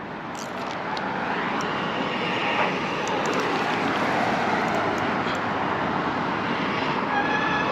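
Steady rushing noise of road traffic passing on the highway bridge. It swells over the first second or so and then holds.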